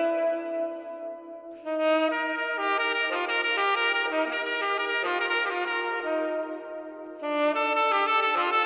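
Music of sustained, layered chords with horn-like tones and no deep bass. It thins out and drops in level about a second and a half in and again around seven seconds, each time swelling back fully.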